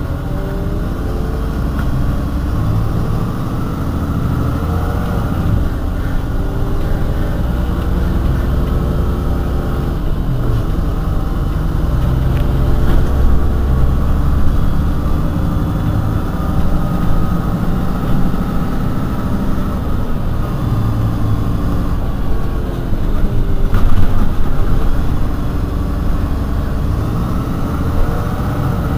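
Heuliez GX 137 city bus's diesel engine running under way, its pitch rising and falling again and again as the bus accelerates, slows and pulls through its gears, heard from inside the bus. There is a loud thump near the end.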